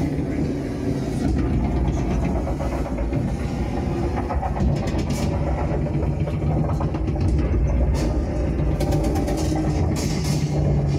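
Battle sound effects played over speakers: a steady, low, engine-like rumble with a few sharp cracks scattered through it.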